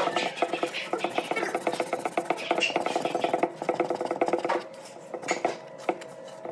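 Sandpaper rubbed by hand in quick short strokes along the curved edge of a wooden board: a rapid dry scratching. About four and a half seconds in it thins to a few sparser, quieter strokes.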